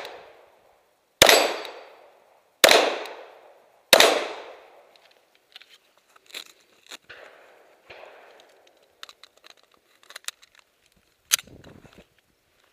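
Semi-automatic pistol fired three times, about 1.3 seconds apart, each shot trailing off in an echo. Quieter scattered clicks follow, with one sharper click late on.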